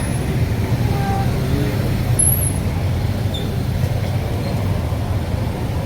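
Street traffic: a steady low engine rumble from vehicles, with faint scattered voices or calls over it.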